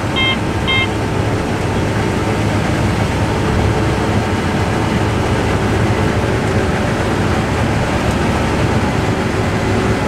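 Case IH combine harvester running, a steady drone of engine and threshing machinery heard from inside the cab. In the first second a short run of electronic beeps, about two a second, from the cab, which stops.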